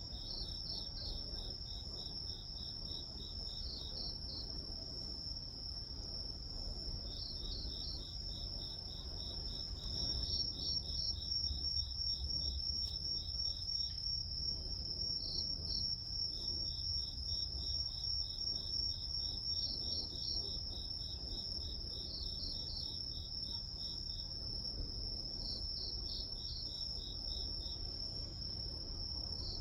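Crickets and other grass insects chirping: one steady high trill, with a second insect's rapid pulsed chirps starting and stopping in stretches, over a faint low rumble.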